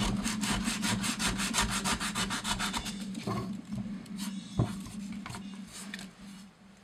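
Hand sanding with 100-grit sandpaper on the metal bell housing of a Royal Model 880 upright vacuum: quick back-and-forth scraping strokes, about four or five a second, wearing down deep scratches. The strokes slow and thin out, with one sharp knock about two-thirds through, and stop near the end.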